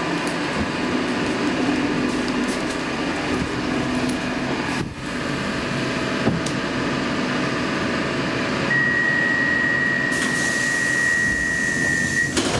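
Stockholm Metro C14 train car standing at the platform, its ventilation and onboard equipment running with a steady hum. About nine seconds in, a steady high warning tone sounds for about three and a half seconds and cuts off sharply near the end, typical of the door-closing signal just before the doors shut.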